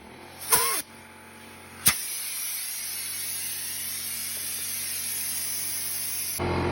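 Water rushing out of a water heater's drain valve and hose as the tank is flushed of sediment: a steady hiss that sets in after a sharp click about two seconds in.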